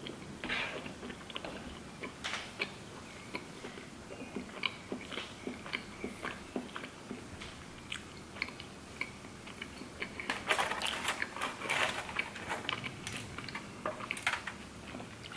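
Close-miked chewing and mouth sounds of a person eating soup and bread, many small wet clicks and smacks. About ten seconds in it turns louder and crackly as the flatbread is torn apart over aluminium foil.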